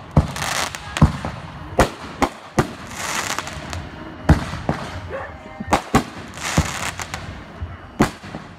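Fireworks going off: aerial shells bursting in about a dozen sharp bangs at irregular spacing, with stretches of hissing crackle between them.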